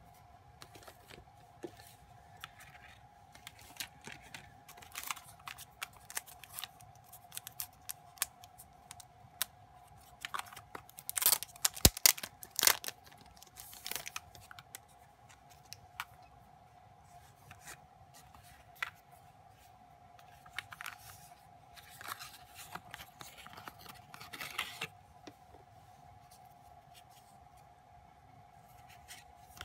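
Hands handling photocards and their card and plastic packaging: scattered rustles, taps and scrapes, with a louder run of sharp rustling and crinkling about eleven to thirteen seconds in. A faint steady whine sits underneath.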